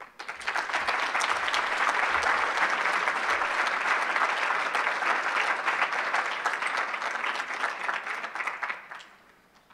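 Audience applause, steady dense clapping that dies away about nine seconds in.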